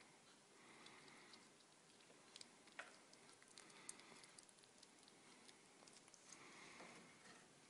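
Near silence with faint scattered ticks and clicks: a grey squirrel nibbling and gnawing a piece of chocolate.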